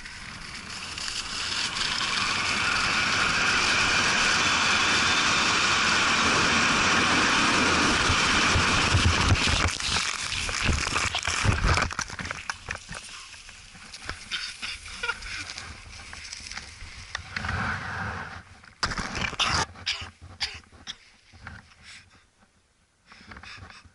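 Wind rushing over an action camera's microphone as a skier speeds downhill, growing louder over the first few seconds and then holding steady. About ten seconds in, the skier falls: heavy thumps and scraping on the snow over two or three seconds, then scattered knocks and rustles that die down near the end.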